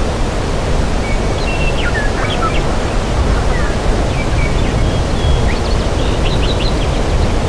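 Forest ambience: a steady rushing background noise with birds chirping over it in short, bright calls, a few together about two seconds in and a longer run in the second half.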